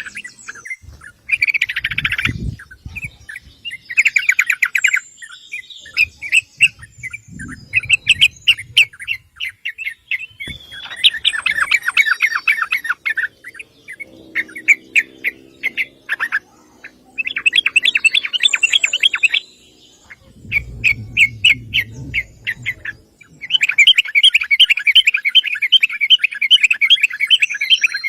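Yellow-vented bulbul calling: repeated one- to two-second bouts of rapid chattering notes, with low rumbles between some of the bouts.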